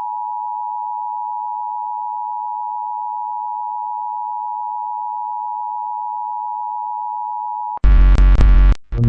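Emergency Alert System attention signal: a steady two-tone electronic beep at about 853 and 960 Hz, held for about eight seconds and then cut off abruptly. A loud, harsh burst about a second long follows near the end.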